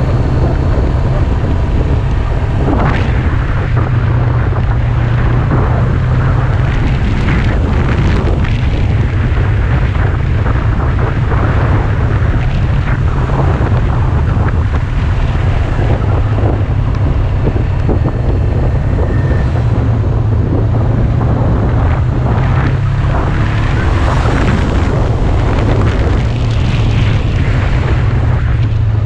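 Motorcycle riding at speed, with wind buffeting the microphone over the engine running steadily underneath.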